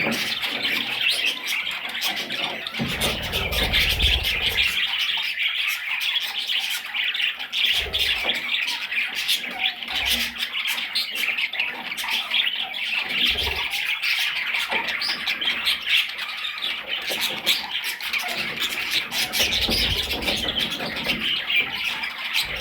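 Budgerigars chattering and warbling nonstop, a dense run of fast high chirps and squawks, with a few low rumbles, the longest about three seconds in.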